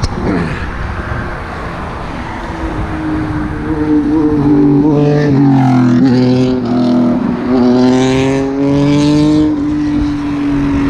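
Road traffic: a loud vehicle engine passing close by, its steady pitched note dipping and then rising again, over a background of traffic noise.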